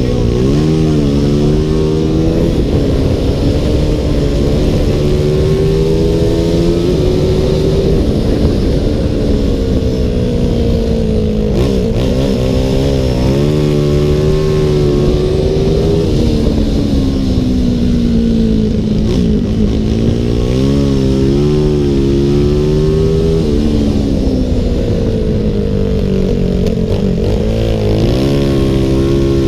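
CG 300 racing motorcycle engine at full race pace, heard onboard: its pitch climbs steadily, drops abruptly at each gear change, and falls away when slowing for corners, several times over.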